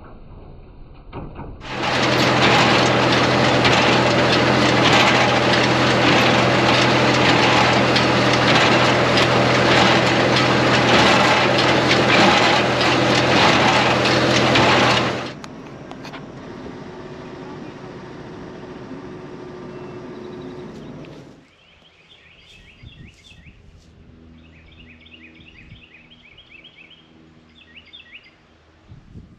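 Tractor-drawn John Deere 24T square baler running under load for about thirteen seconds: a loud, steady engine drone with a rapid, regular clatter. It cuts off suddenly to a quieter steady rumble, and after about 21 seconds to a quiet field with birds chirping.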